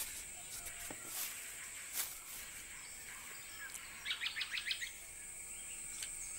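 Tropical rainforest ambience: a steady high-pitched insect drone, with a bird giving a rapid series of about eight short sharp notes a little after four seconds in, and a few scattered chirps and clicks.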